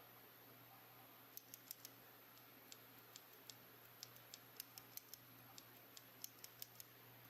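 Faint, irregular sharp clicks of a loose Gateron blue mechanical keyboard switch being pressed and released by hand, its click jacket snapping, starting about a second and a half in.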